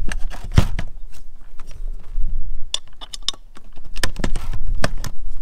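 Irregular metallic clicks and clinks of a Winegard antenna's aluminium mast, elevating drive and steel pin being handled and fitted into the roof mount by hand.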